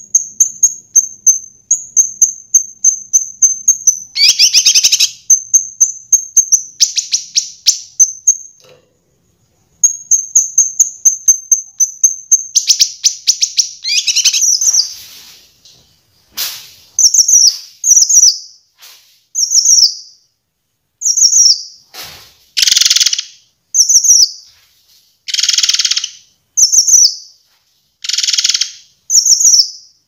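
Kinoi songbird singing: fast runs of high chirps and trills, then, from about halfway, separate short down-slurred whistles alternating with harsher, fuller bursts roughly a second apart.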